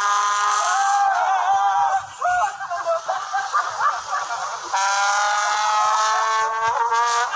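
Trumpet blaring from a passing motor scooter: long, loud held notes, with a wavering, bending stretch in the middle before the note is held steady again.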